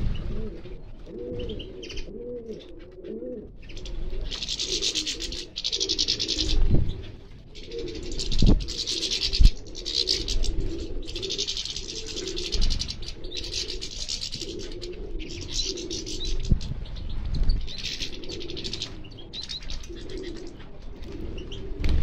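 Finches, mostly European goldfinches, twittering in repeated high bursts at a seed tub, over a pigeon cooing low and repeatedly. A few dull thumps break in, the strongest about eight and a half seconds and nine and a half seconds in.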